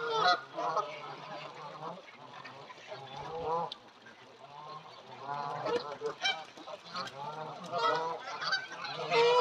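A flock of Canada geese honking, with many short calls overlapping and repeating. The calls are loudest just after the start and again near the end.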